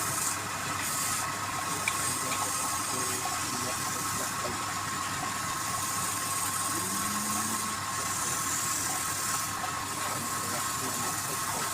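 Wood lathe running steadily with a constant motor whine, and a high hiss that swells and fades every few seconds.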